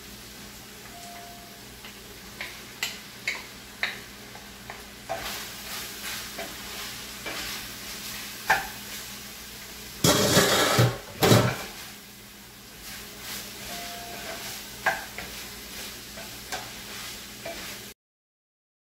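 Ground meat sizzling in a stainless steel skillet while a wooden spoon stirs it and taps against the pan; diced onions and red peppers are stirred in with the meat. There is a louder burst of noise about ten seconds in, and the sound stops abruptly near the end.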